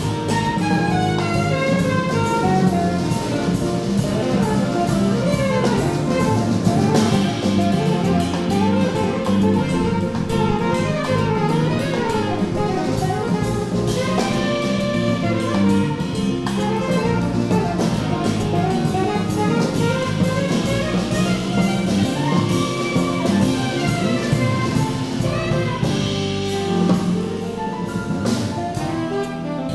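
Live jazz quartet: saxophone playing a busy melodic line over grand piano, upright bass and a drum kit played with sticks.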